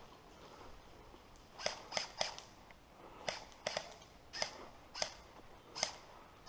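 Footsteps crunching through dry fallen leaves and twigs, a short crackle with each step at an ordinary walking pace, starting about a second and a half in.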